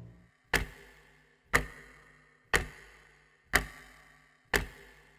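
Clock ticking once a second: five sharp, even ticks, each with a short ringing decay.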